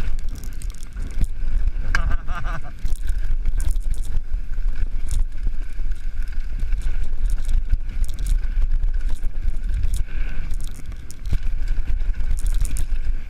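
Full-suspension mountain bike descending a rough downhill trail: wind rumble on the mic with the clatter and rattle of the bike over rocks and roots. A brief warbling squeal comes about two seconds in.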